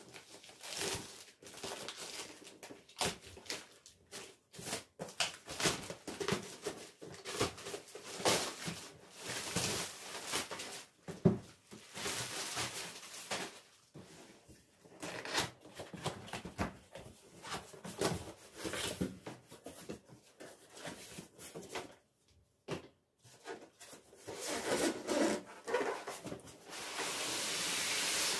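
Irregular rustling, rubbing and light knocks of household things being handled, with a steady hiss setting in near the end.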